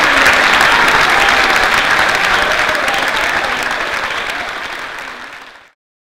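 Theatre audience applauding a cast's curtain call, a dense sound of many hands clapping. It fades away and cuts off shortly before the end.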